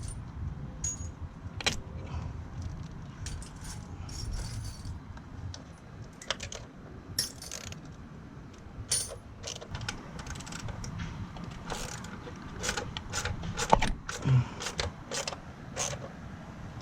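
Irregular metallic clinks and clatter of hand tools being handled while work starts on a car's spark plugs.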